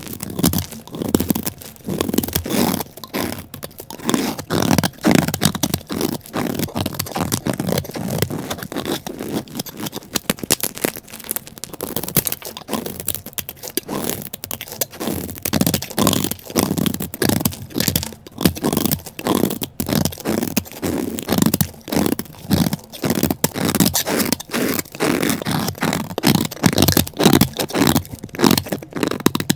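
Dry, crumbly soap or chalk being scraped and crunched in quick repeated strokes, one stroke after another with no pause.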